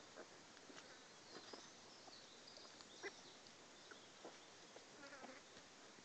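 Near silence: faint outdoor background hiss with a few small clicks and rustles scattered through it.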